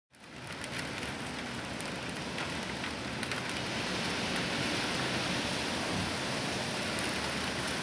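Heavy rain falling steadily, with many close drops ticking on surfaces; it fades in over the first half second.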